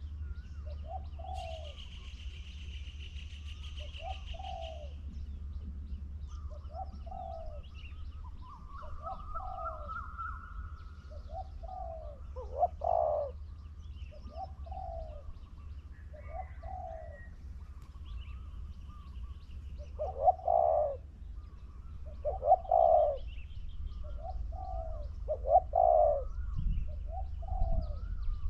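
Spotted dove cooing over and over, a short coo roughly every second and a quarter, some coos louder than others. Fainter chirps of other small birds sound high above, and a steady low hum runs underneath.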